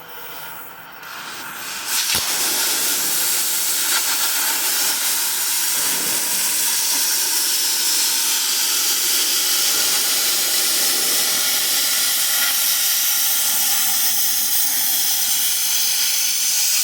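Metal-cutting torch hissing steadily while cutting steel. It comes on abruptly with a click about two seconds in and then holds loud and even.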